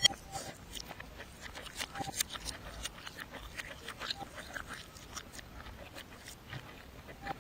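Close-miked mukbang eating sounds played backwards: irregular crunches, smacks and clicks of chewing, with one sharp click right at the start.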